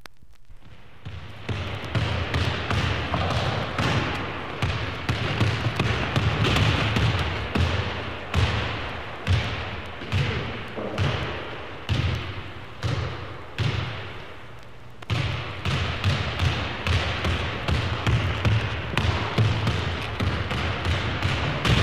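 A basketball dribbled on a hard floor: a steady run of bounces about one a second, a short break about two-thirds of the way through, then quicker dribbling at about two bounces a second.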